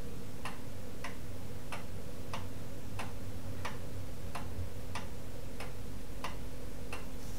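Steady, even ticking, about three ticks every two seconds, over a low steady hum.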